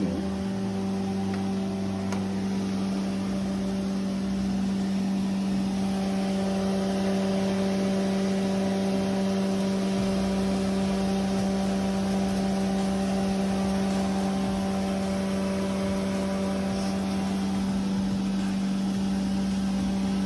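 Steady mechanical hum of a running machine, one even pitch that does not change.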